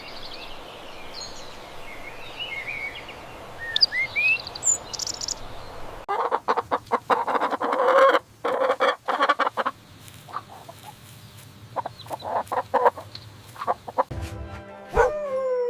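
Small birds chirping over a steady hiss for about six seconds, then a hen clucking in quick runs. Near the end a Siberian husky starts to howl.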